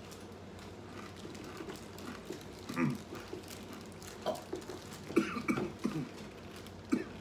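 Chewing mouth noises and a few brief grunts from people chewing a Carolina Reaper chip, coming in short scattered bursts about three, four, five and seven seconds in.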